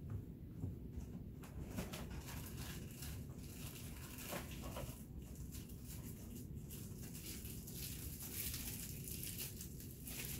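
Faint rustling and scattered light knocks and clicks of someone rummaging for a hot glue stick, over a low room hiss.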